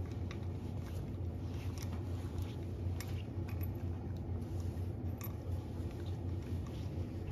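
A cat eating from a bowl: irregular small clicks and crunches of chewing and of the mouth against the bowl, over a steady low hum.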